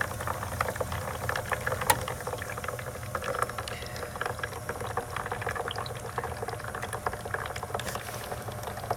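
Water bubbling and crackling inside a 1996 Elektra La Deliziosa T1 espresso machine while it runs a brew cycle, with the pump motor's low steady hum beneath.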